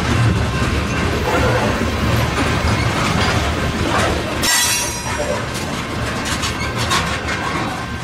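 Slow-moving freight train's covered hopper cars rolling past on the rails, wheels rumbling and clacking, with a brief high wheel screech about halfway through. The sound eases as the last car goes by.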